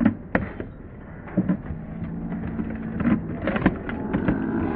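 Hard plastic sport-stacking cups clacking against each other and the mat as they are stacked up and down in quick runs: a rapid, uneven series of sharp clicks.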